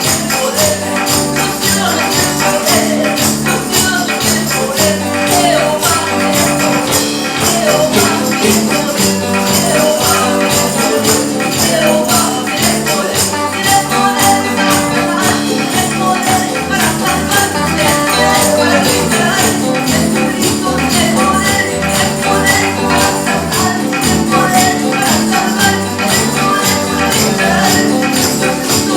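A band playing an upbeat gospel song, with a steady, fast percussion beat.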